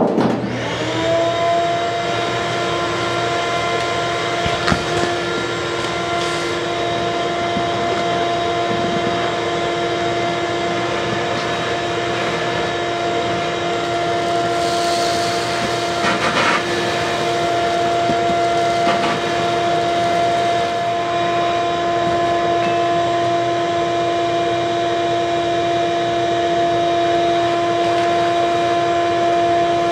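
Wet/dry shop vacuum running with a steady whine, its motor spinning up in the first second after switch-on, sucking shards of old foam out of a racing fuel cell through its hose. A few short clicks come along the way.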